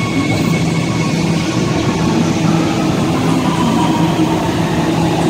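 Siemens-Adtranz Type A1 metro train pulling into the station and slowing. Its GTO-VVVF traction inverter whines with several steady tones over the rumble of the wheels.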